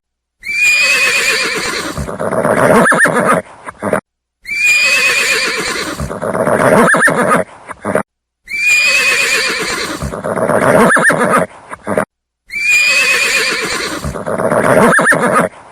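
A horse whinnying: the same recorded whinny loops four times with short silent breaks about every four seconds. Each whinny starts with a high, quavering squeal and drops lower toward its end.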